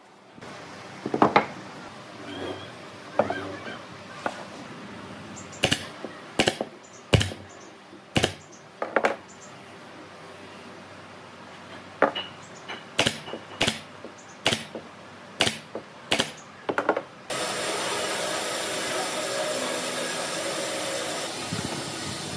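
Workshop tool sounds on wooden furniture parts: about a dozen sharp clicks and knocks, spaced irregularly, some in quick pairs. Near the end a steady machine noise starts abruptly and keeps going.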